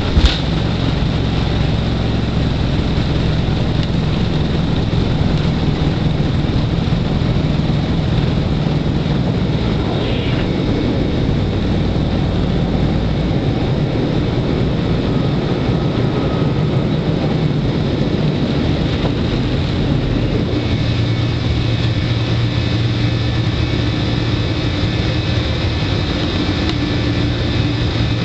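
Cabin noise of a Boeing 747-400 on takeoff: its four jet engines at takeoff thrust, a steady loud rush with deep runway rumble, after a brief knock right at the start. About halfway through the rumble drops away as the plane climbs, leaving a steadier engine hum.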